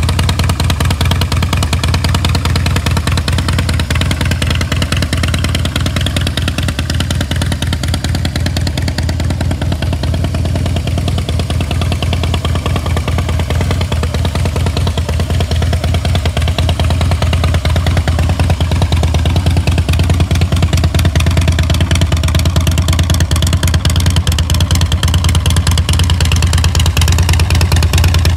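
2016 Harley-Davidson Softail Breakout's Twin Cam 103 V-twin idling steadily through Vance & Hines slip-on mufflers, a deep, even lope of exhaust pulses, a little louder in the second half.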